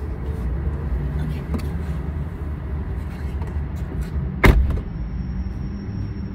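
A car's passenger side door slammed shut about four and a half seconds in, one loud thud, over a steady low rumble.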